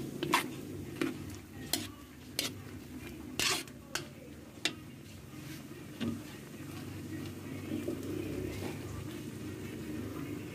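Metal spatula scraping and clanking against a metal wok while stir-frying cabbage and carrots, over a steady sizzle. The clanks come every half second or so for the first six seconds, then mostly the sizzle remains.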